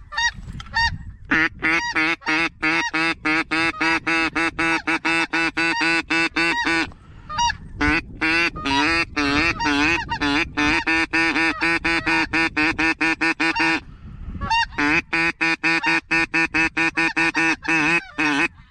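Geese honking in rapid, continuous calling, many calls a second, in long stretches broken by short pauses about seven and fourteen seconds in.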